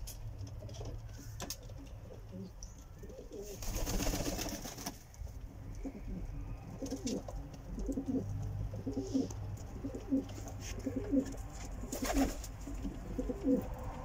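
Domestic show pigeons (Polish postal show and Silesian shield breeds) cooing in many short, overlapping coos, thickest in the second half. A brief rushing noise comes about four seconds in.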